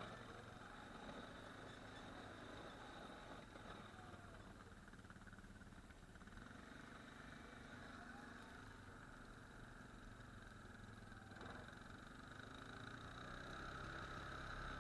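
ATV engine running steadily, faint, growing a little louder near the end.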